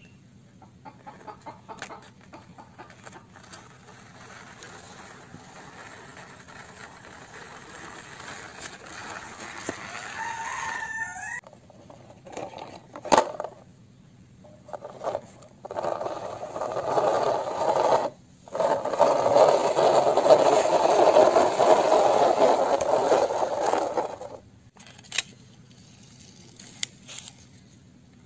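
Chickens clucking and a rooster crowing, with scattered sharp clicks and knocks of plastic toy vehicles being handled on concrete. The loudest stretch is a long rough burst of sound from about 16 to 24 seconds in.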